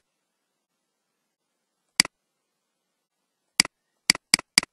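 Computer mouse clicking: five sharp clicks, one about two seconds in and four in quick succession near the end, with dead silence between them.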